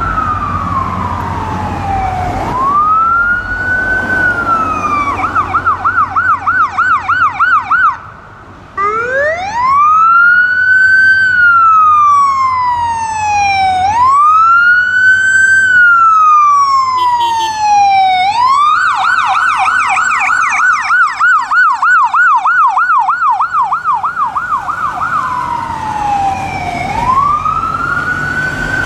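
Ambulance's electronic siren sounding as it drives through, switching between a slow wail that rises and falls over a few seconds and a fast yelp of about three sweeps a second. The sound drops out briefly about eight seconds in.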